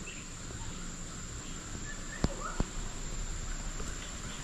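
Insects, crickets or the like, droning in one steady high-pitched tone, with two sharp clicks a little over two seconds in, a third of a second apart.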